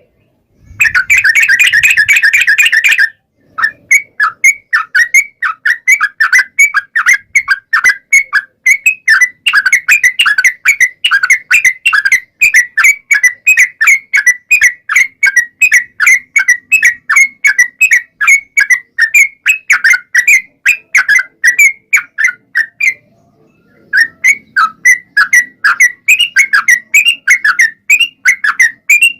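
Yellow-vented bulbul (trucukan) singing a long rapid-fire 'ropel' song. It opens with a harsh chattering burst of about two seconds, then runs into a long string of short, quick, falling notes, several a second. The run breaks off for about a second near the three-quarter mark and starts again.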